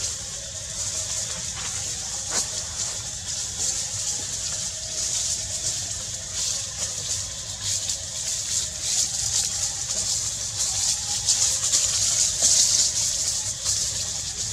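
Outdoor ambience: a steady high-pitched hiss with a fast fluttering pulse, growing louder toward the end, over a faint low rumble.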